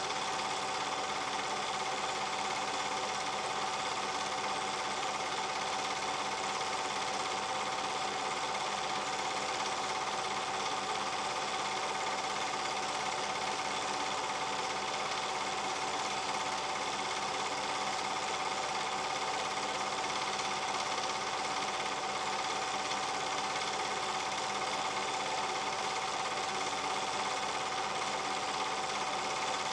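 A small machine running steadily: a fast, even mechanical clatter with a constant whine over it.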